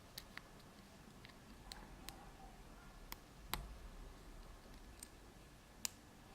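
Faint, irregular small clicks of a lock pick and tension wrench working in a BKS five-pin cylinder as picking begins. Two clicks stand out, about three and a half and six seconds in.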